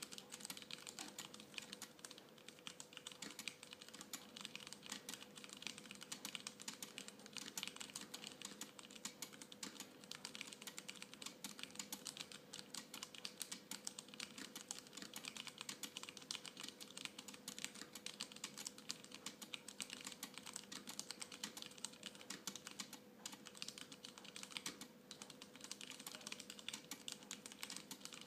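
Continuous typing on a Poker II mechanical keyboard with Cherry MX Brown switches, used without its case: a steady, uneven stream of key clacks, several a second.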